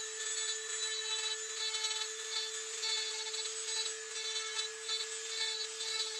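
Dremel rotary tool running at a steady high whine while its small bit carves grooves into a walnut handle, with a grinding rasp that swells and fades as the bit bites into the wood.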